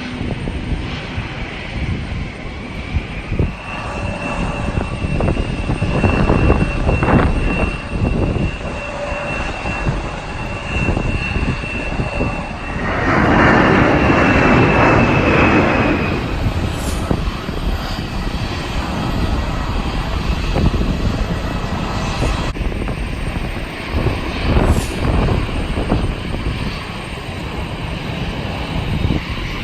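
Jet airliner engines running with a steady high whine that dips and fades about halfway through, peaking in a louder rush just before it ends. Strong wind buffets the microphone throughout.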